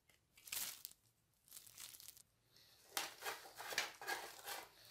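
Faint crinkling of thin disposable plastic gloves as hands handle a bulb holder and its wires, in short irregular rustles that get busier about three seconds in.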